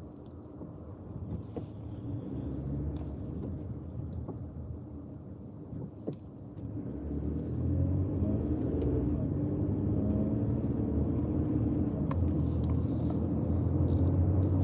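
A car driving, with engine and road rumble heard from inside the cabin. It grows louder about seven seconds in as the car picks up speed, then holds steady.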